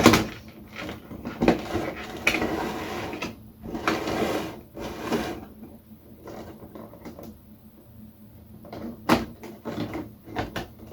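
Figure packaging being handled: plastic and cardboard rustling, with irregular knocks and clacks, the sharpest right at the start and about nine seconds in.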